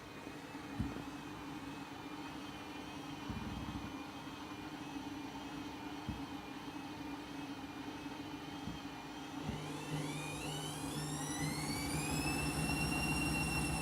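Washing machine spinning a half load, slightly out of balance, with a steady hum and a few dull thuds from the drum. About ten seconds in, the motor whine rises in pitch as the spin speeds up, then levels off near the end.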